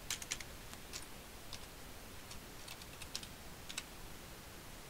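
Computer keyboard keystrokes, faint: scattered taps in small groups of two or three, with short pauses between, as a short spreadsheet entry is typed.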